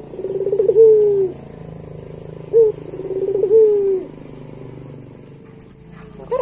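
Puter pelung dove cooing twice, about two and a half seconds apart: each call is a short note, a quick rolling burst, then a long drawn note that falls away at the end.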